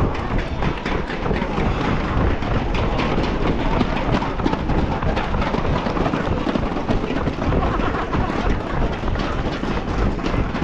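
Strong wind rumbling on the microphone of a runner's camera, with the runner's footfalls as repeated short thuds and faint voices in the background.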